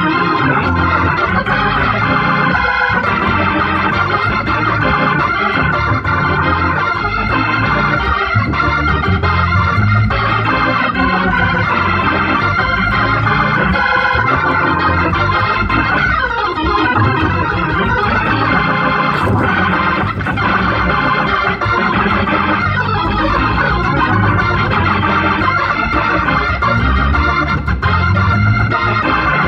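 Hammond organ played gospel-style: full, sustained chords with shifting bass notes underneath, continuous and loud.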